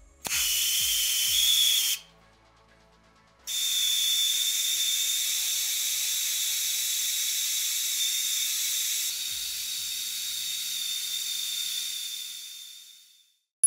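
Homemade high-voltage plasma thruster running with a loud hiss and a steady high whine. A short burst of under two seconds, a pause, then a steady run of about ten seconds that fades away near the end.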